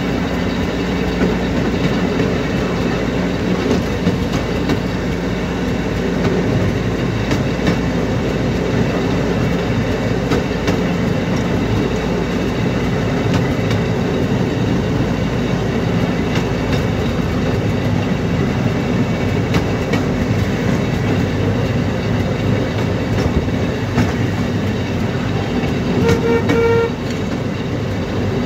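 Vintage railway speeder car travelling along the track: its small engine runs steadily under the clatter of the wheels on the rails. Near the end a horn gives one short toot, about a second long.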